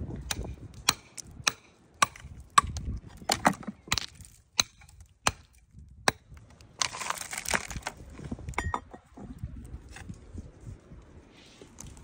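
A series of sharp, irregular knocks and cracks, a dozen or so in the first six seconds, then a short rough rush of noise about seven seconds in and a few more clicks.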